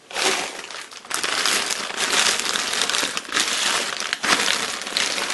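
Clear plastic bag crinkling loudly as it is grabbed and lifted, a continuous rustle with a few short lulls.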